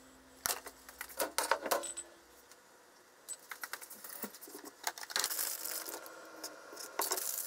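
Clicks and knocks of a container being handled on a kitchen counter, then a kitchen knife tapping sharply on a wooden cutting board as wiener sausages are sliced in the second half.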